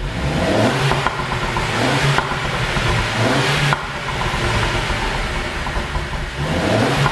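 Mercedes-Benz W207 E200 Cabriolet's turbocharged four-cylinder engine revved three times, the pitch rising and falling back each time. Sharp pops come from the exhaust as the revs drop, from a tune made to produce them.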